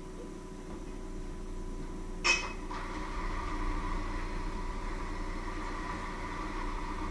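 A single sharp clink of something hard against crockery about two seconds in, over a steady electrical hum. After it a rushing noise slowly builds.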